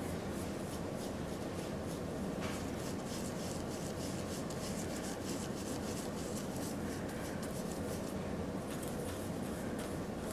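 Round stencil brush dabbing and rubbing black paint through a plastic stencil onto wood: a dry, scratchy bristle sound in quick repeated strokes, over a steady low hum.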